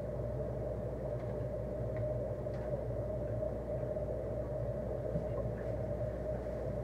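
Steady hum of the fish room's aquarium equipment running, with a low drone and a higher steady tone, and a few faint clicks over it.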